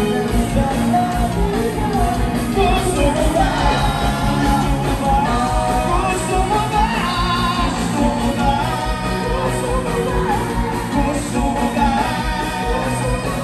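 Live band playing loud pop music with electric guitars, drums and a singer, over a steady kick-drum beat.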